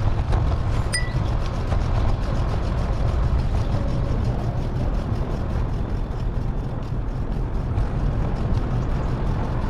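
Steady wind rumble and road noise from a moving bicycle ride, with a short high beep about a second in.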